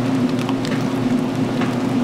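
Magic Chef 20-pound washer in its wash phase: a steady motor hum with water sloshing and splashing in the tub.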